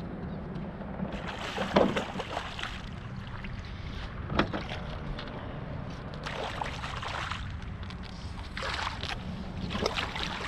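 A fishing boat's steady low mechanical hum, with water splashing against the hull in several short bursts and two sharp knocks, about two and four and a half seconds in.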